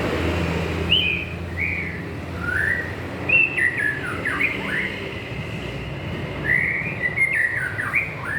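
White-rumped shama (murai batu) singing: two runs of quick whistled notes that sweep up and down, the second starting about two-thirds of the way in.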